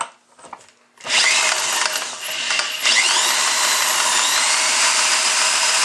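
An old Ironhorse small engine being spun over to check for spark: a loud, steady whirring starts about a second in. The engine does not fire because it has lost its spark, which the owner suspects comes from the breaker points closing up again.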